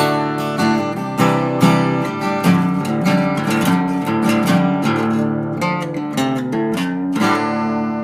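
Intro music: an acoustic guitar strumming chords with a steady beat.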